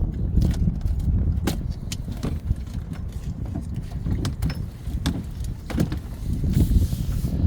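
Wind buffeting the microphone as an uneven low rumble, with a few scattered sharp knocks and clicks.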